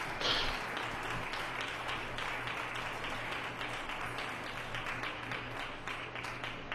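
Congregation applauding: a steady patter of many hands clapping, easing off slightly near the end.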